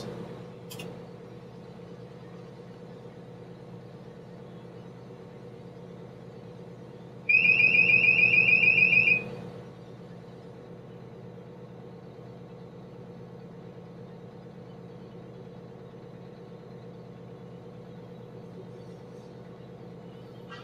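External alarm of an excavator's rated capacity indicator sounding on its alarm test: a loud, high-pitched electronic beep pulsing rapidly for about two seconds near the middle, over a steady low hum.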